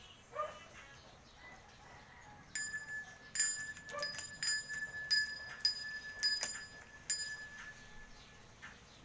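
Small metal bells in a toy Lego bell tower being struck, about ten quick dings starting a couple of seconds in. Their high ringing tone carries on and fades out near the end.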